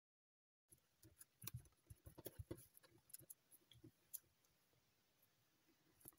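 Faint, scattered clicks and crinkles of a small strip of Merci chocolate-wrapper paper being creased and folded by fingers, starting about a second in.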